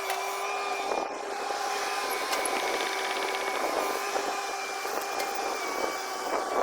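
Long-boom excavator running steadily, with a steady mechanical whine and a few light knocks.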